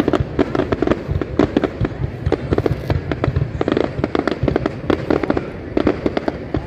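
Aerial fireworks display: shells bursting in a rapid, unbroken string of bangs and crackles.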